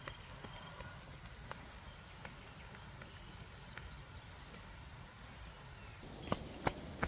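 Quiet outdoor ambience: a steady low rumble with faint chirps and scattered light ticks. About six seconds in, a few sharp clicks or knocks begin.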